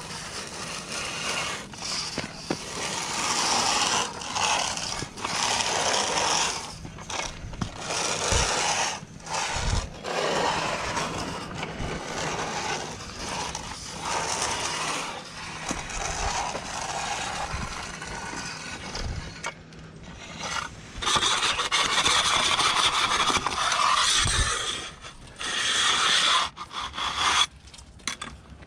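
Steel hand finishing tools, trowel and edger, scraping back and forth over wet concrete in irregular strokes, loudest and most continuous for a few seconds near the end.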